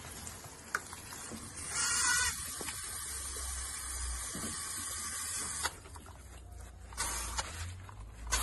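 Water hissing from a garden-hose spray nozzle, louder for a moment about two seconds in. It drops away about five and a half seconds in, then comes back in a short burst near the end.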